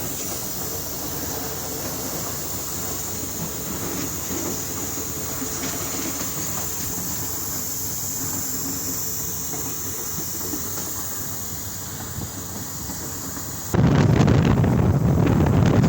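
Steady running noise of a moving vehicle, with a high hiss and faint rattling clicks. About 14 seconds in it cuts abruptly to louder wind buffeting the microphone.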